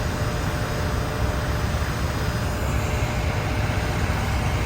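Heavy diesel road-paving machinery, a dump truck raising its bed to feed asphalt into a paver, running with a steady low rumble.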